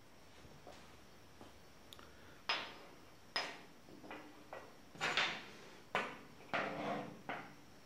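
Steel flat-bar pieces and a homemade welder's mechanical finger being set down and positioned on a metal work surface: a string of sharp metal clanks and taps with short ringing, the loudest in the second half.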